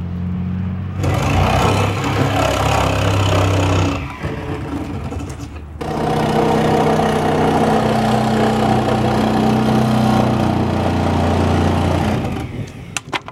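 Sawzall reciprocating saw running under load as it cuts a window opening in a wooden wall, in two long runs: one from about a second in to about four seconds, and a longer one from about six seconds to near the end.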